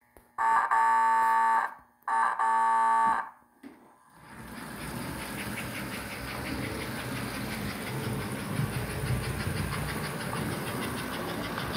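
Two toy train whistle blasts from an American Flyer 315 Pacific model steam train, then the train starts off and runs around its track with a steady motor and wheel noise that builds up after about four seconds.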